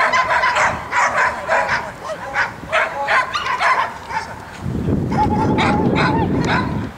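Dogs barking and yipping in quick, repeated short barks. In the last couple of seconds a wavering whine rises over a loud low noise.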